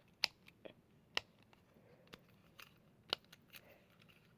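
Scattered light plastic clicks and taps from a small fidget toy being handled, about seven irregular clicks with no steady rhythm.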